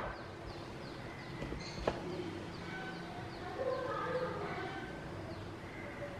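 A knife taps once, sharply, on a wooden cutting board about two seconds in, while breadfruit is being cut. Under it are a faint low hum and faint short, high, falling sounds.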